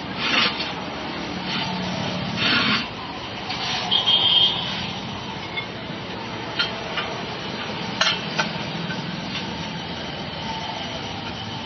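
Rubber scraping and rubbing as a car tyre's bead is worked by hand and with a metal tyre lever to fit an inner tube into a tubeless tyre, in several short bouts, followed by a few sharp metal clicks from the lever.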